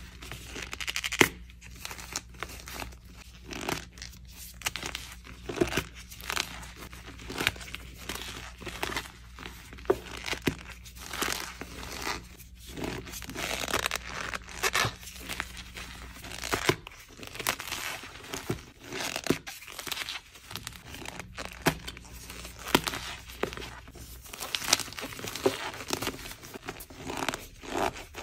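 Blocks of gym chalk coated in cornstarch squeezed and crumbled by hand: squeaky cornstarch and crunching chalk in a dense, irregular run of sharp crackles.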